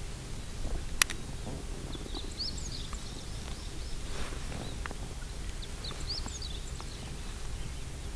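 Small birds chirping in short, high, quick calls that come in scattered clusters, over a steady low rumble of wind. One sharp click about a second in.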